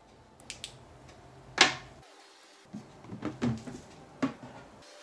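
Knocks and clunks of a resin print and a UV curing station being handled: one sharp knock about a second and a half in, then several lighter clunks in the second half.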